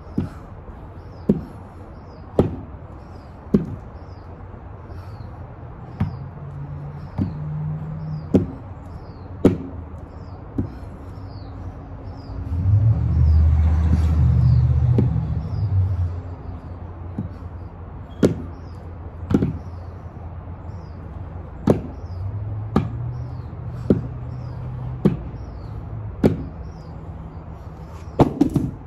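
Adjustable dumbbells knocking about once a second, one sharp clank with each rep of a set of bent-over rows. A passing vehicle rumbles in the middle, its three seconds the loudest stretch, and birds chirp faintly.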